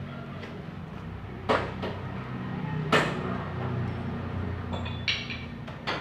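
Four sharp knocks, like metal tools or engine parts clanking during work on a motorcycle engine, the loudest about halfway through, over a low steady hum.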